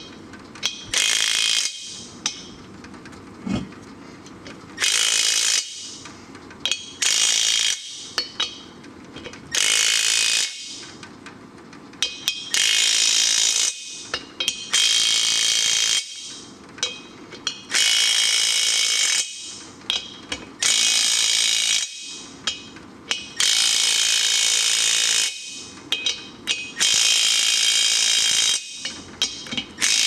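Impact wrench hammering in repeated bursts of one to two seconds with short pauses and clicks between them, running down the nuts that draw a truck's front hub onto its brake drum. The hub is not yet seated all the way down.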